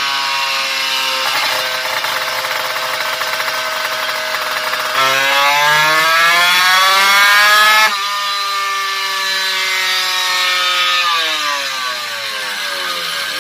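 Drag-racing motorcycle engine breathing through an aftermarket Creampie muffler, run hard on a roller dynamometer during a dyno pull. It holds a high steady note, then about five seconds in the revs climb steadily for some three seconds and drop off sharply, and the pitch winds down near the end.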